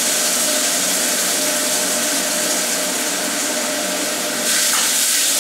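Steady sizzling hiss of sauce, green pepper and pineapple cooking in a wok over a gas flame, growing a little louder near the end.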